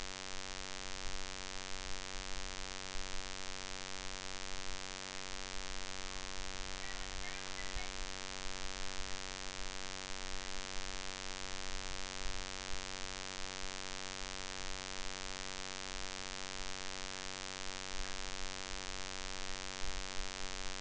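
Steady electrical mains hum, buzzy with many evenly spaced overtones, over a constant hiss.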